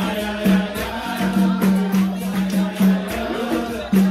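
Capoeira roda music: a group singing over the bateria of berimbaus, pandeiro and atabaque drum. A low note repeats in a steady rhythm under crisp, regular shaken and jingling percussion.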